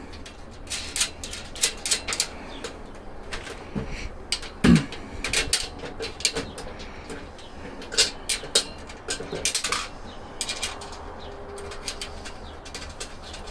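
Irregular small metallic clicks and clinks of steel bolts and flanged self-locking nuts being handled and fitted into the tool cart's steel frame. A brief low-pitched sound about five seconds in is the loudest moment.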